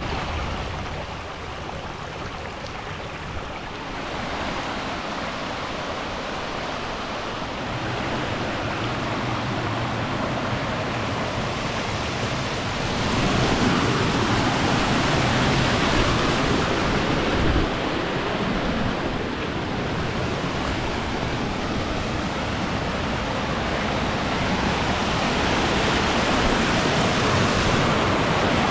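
Rushing water of a creek's waterfalls, a steady full-range noise that shifts in loudness a few times and grows louder about halfway through.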